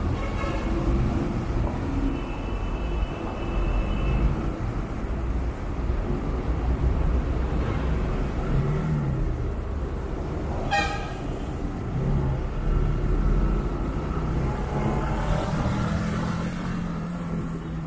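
Motorcycle riding in slow city traffic: steady engine and road rumble. A high, steady toot lasts about two seconds, starting about two seconds in, and a single sharp click comes near the middle.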